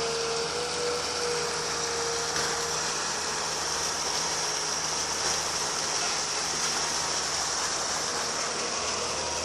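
Steady running noise of a 20-ton excavator driving a hydraulic mud suction pump: a continuous engine hum under an even hiss.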